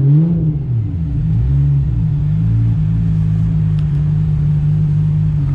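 Car engine running at low speed while creeping forward: its pitch rises and falls a few times in the first couple of seconds, then settles into a steady hum.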